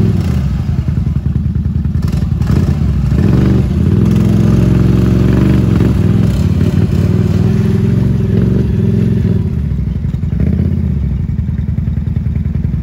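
Honda four-wheeler's single-cylinder engine revving up and easing off again and again as the ATV churns through a deep mud hole, with some clattering.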